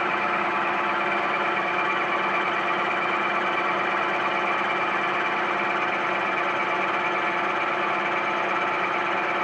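Vertical knee milling machine running steadily as a shell mill takes a light finishing cut under power feed, a constant motor-and-spindle hum with a layered whine of several steady tones.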